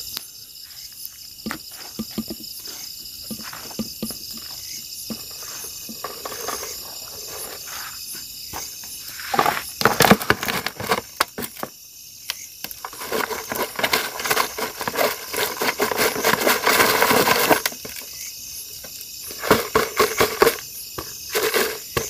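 Crickets chirping steadily in the night, with scattered clicks and scuffs. From about ten seconds in, a stretch of splashing and rustling lasting several seconds: water poured from a plastic bottle into a plastic basin and the contents worked by hand.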